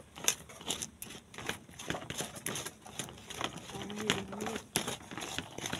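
Stone pestle (ulekan) mashing and stirring rujak chilli sauce in a stone mortar (cobek): irregular scraping clicks and taps, several a second. About four seconds in there is a brief low pitched sound under the tapping.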